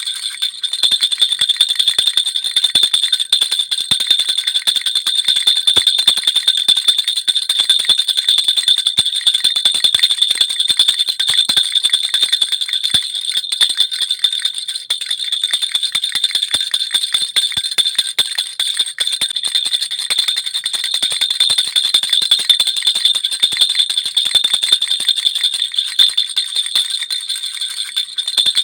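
Baby rattle (jhunjhuna) shaken without pause: a dense, even jingling of many small clicks over a steady high ringing.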